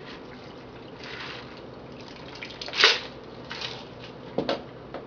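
A shaken cocktail being strained from a metal cocktail shaker into a tall glass: a faint trickle of liquid. About three seconds in comes one loud knock, then a couple of smaller clinks, as the shaker and glass are handled on the bar.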